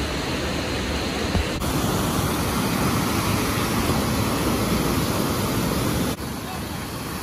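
Steady rush of pumped water sheeting up a surf-simulator wave ride, broken off abruptly twice.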